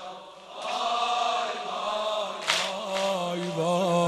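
Voice chanting a long, drawn-out wavering note of a Persian Shia mourning lament (noha), over a steady low drone. It starts softly and swells about half a second in, with a short breathy hiss a little past halfway.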